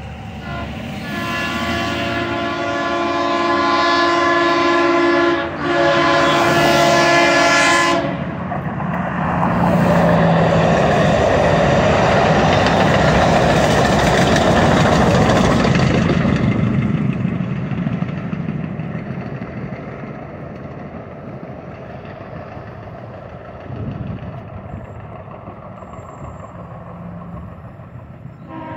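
DART light rail train sounding its horn in two long blasts as it comes up to the street crossing, then rumbling past on the rails and fading away down the line.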